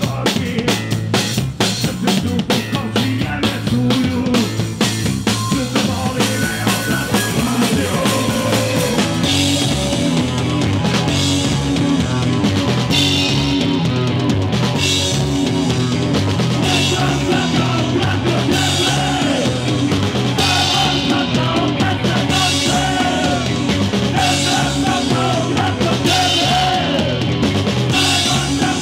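Punk rock band playing loudly, with a fast drum kit, bass guitar and electric guitar; a man's singing comes in about nine seconds in, over repeated cymbal crashes.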